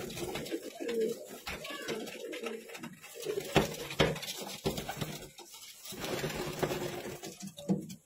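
Fantail pigeons cooing, low repeated coos overlapping throughout, with two sharp knocks about halfway through.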